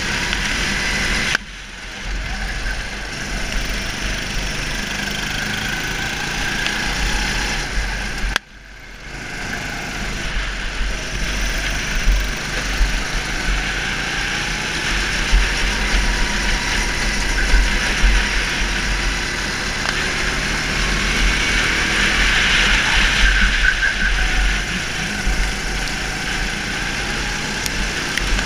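Go-kart engine running hard, its note rising and falling with the throttle. It drops away sharply twice, about a second in and again around eight seconds in, as the throttle is lifted, then climbs back under acceleration.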